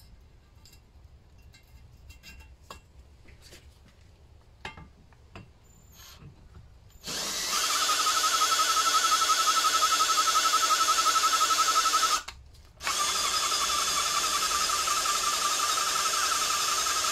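Ryobi drill spinning a Lister D engine's exhaust valve against its seat with valve lapping paste, lapping the valve in. A few faint clicks as the drill is fitted to the slotted valve top, then the drill runs steadily for about five seconds, stops briefly, and runs again for about four seconds.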